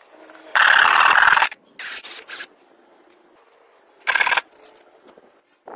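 Short bursts of rasping on PVC plastic as the grey PVC disc is cut and shaped by hand. One longer, loud stroke comes about half a second in, then a quick run of three shorter ones, and two more bursts about four seconds in.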